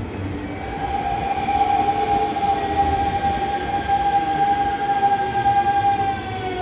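Hanshin 5500 series electric train running slowly into the station, with a strong, steady high whine over the low rumble of the wheels; the whine sets in about half a second in and slides down in pitch near the end as the train slows.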